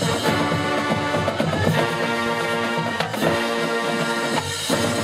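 High school marching band playing: sustained brass chords over drums and struck percussion.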